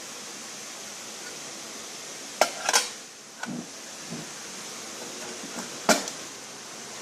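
Sharp metallic clinks and knocks, a pair about two and a half seconds in, fainter ones after and a loud one near the end, over a steady hiss.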